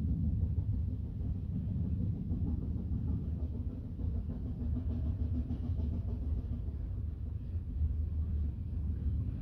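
Narrow-gauge steam locomotive Ogwen approaching along the 2 ft gauge line, heard as a steady low rumble.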